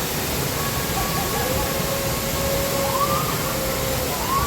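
A tall waterfall pounding into its pool: a loud, steady rushing roar. Faint pitched calls that hold and then rise and fall can be heard over it.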